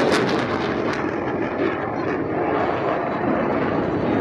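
Jet noise from USAF Thunderbirds F-16 fighter jets in flight: a loud crackling hiss that fades about a second in, leaving a steady rumble.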